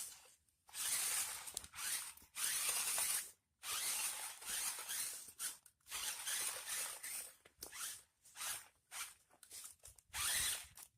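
Toy remote-control off-road car's small electric motor and gears whirring in repeated short bursts, starting and stopping every half second to a second as it is driven in spurts.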